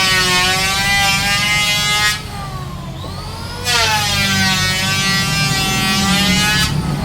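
A woodworking power machine running steadily, making two cuts through wood about a second and a half apart. During each cut the whine dips in pitch as the motor takes the load, then recovers.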